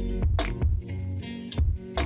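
Background music with a deep bass line, pitched notes and a steady beat.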